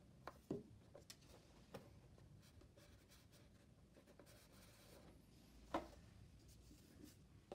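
Faint handling of paper and card: light rubbing and a few soft taps as a paper heart is pressed down onto a card box, with one sharper tap near the end.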